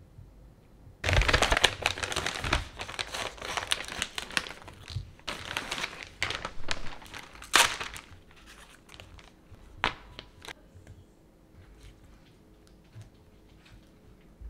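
Plastic packaging crinkling and rustling as it is handled, dense and fairly loud for about seven seconds from a second in, then a few scattered light clicks and taps.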